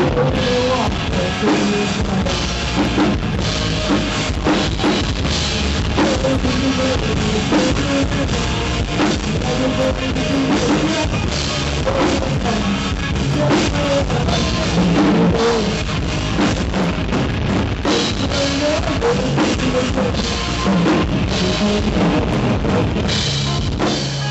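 Live rock band playing loud: a drum kit with bass drum and cymbal hits drives it, with electric guitar and bass guitar underneath.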